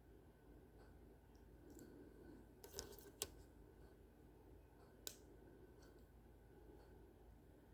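Near silence broken by a few sharp clicks of small plastic building pieces being handled: a short cluster about three seconds in and a single click about two seconds later.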